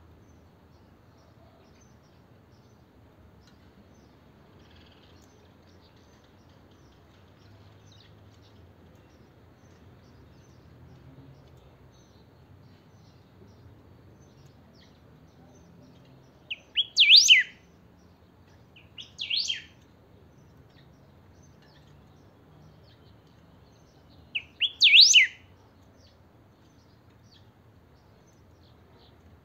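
Caged picahueso (golden-billed saltator) singing: three short, loud phrases of quick whistled notes, the first a little past halfway, the second about two seconds later and the third about five seconds after that.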